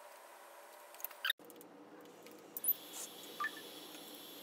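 A few faint clicks and light clatter of drone hardware being handled on a desk, over low room tone. The sound drops out briefly about a third of the way in.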